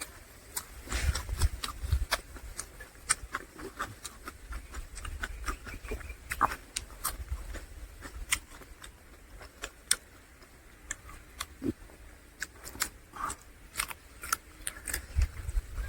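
A person eating close to the microphone: irregular wet clicks and smacks of chewing, with a few low thumps.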